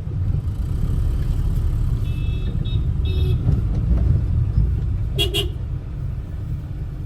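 Steady low road and engine rumble of a car being driven, heard from inside the cabin. Short vehicle horn toots sound about two and three seconds in, and one more, louder, around five seconds in.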